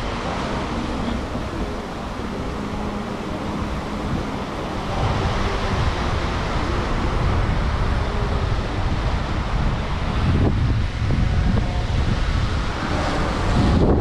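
Wind buffeting the microphone over the wash of ocean surf, a steady rough rumble.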